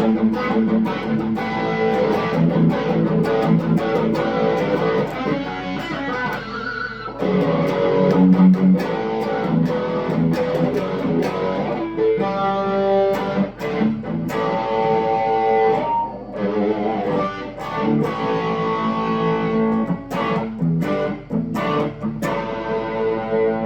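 Electric guitar played through a Marshall Origin 20 combo amp with an Ibanez Tube Screamer and a Missing Link Audio AC/OD overdrive pedal stacked: overdriven chords and riffs, with short pauses between phrases.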